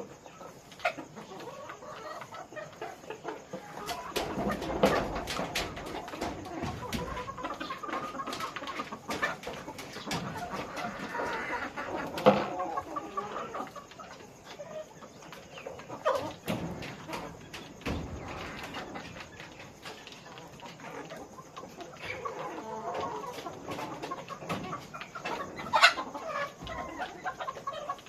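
A flock of farmed broiler chickens clucking and calling continuously, with scattered sharp clicks and knocks among them.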